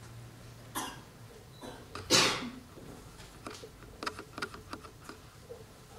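A person coughing: a short cough just under a second in and a louder one about two seconds in, followed by a scatter of faint clicks.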